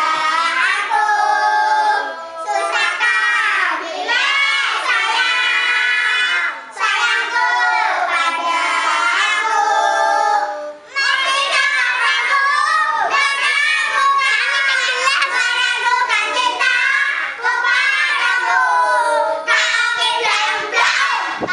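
A group of children singing a song together without instruments, in sung phrases broken by short pauses.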